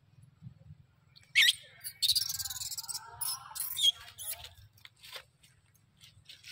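Young long-tailed macaque squealing and screaming: a run of shrill, high cries starting about a second and a half in and lasting about two and a half seconds, followed by a few short squeaks.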